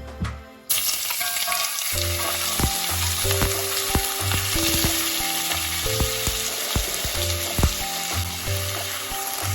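Food frying in hot oil in a pan: a dense, steady sizzle that starts abruptly less than a second in, with scattered clicks and knocks of stirring in the pan.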